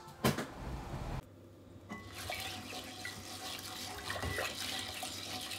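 Water running from a tap into a sink, with a sharp click near the start.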